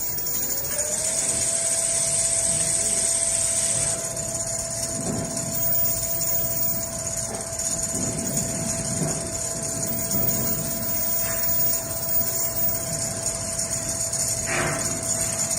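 Machine motor whining up to speed in the first second, then running at a steady pitch over a high hiss, with irregular low clatter in the middle.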